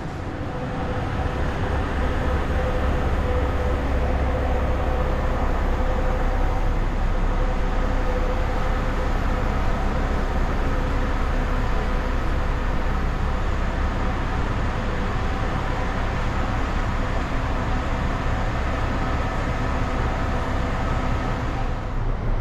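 Steady, unbroken mechanical drone of an underground bus station, heavy and low, with several faint steady hums over it, the kind made by idling coach engines and ventilation echoing in the enclosed hall.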